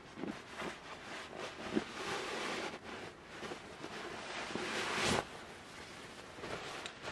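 A down sleeping bag's nylon shell rustling and swishing as it is taken out of its compression sack and unrolled by hand, with a louder, longer swish about five seconds in.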